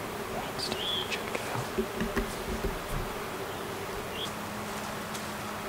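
Flying insects buzzing near the microphone in a steady drone, with a few short, high bird chirps over it.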